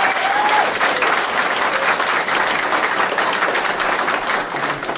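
Audience clapping, with a voice calling out briefly at the start; the clapping dies down near the end.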